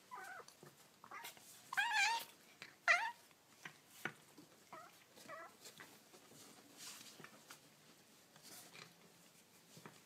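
Young kittens mewing: about five high, wavering mews in the first half, the loudest and longest about two seconds in. Afterwards only faint rustling and small clicks.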